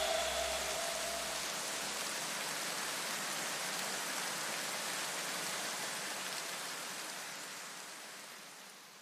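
A steady rain-like hiss left in the soundtrack after electronic music stops, with a low rumble dying away over the first few seconds. The hiss fades out near the end.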